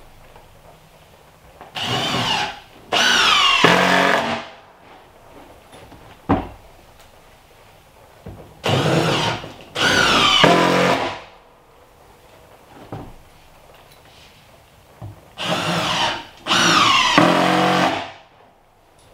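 Cordless drill driving screws to fasten down OSB subfloor sheathing. Three times it runs in a pair, a short burst then a longer one whose pitch sags as the screw is driven home. A light knock falls between the pairs.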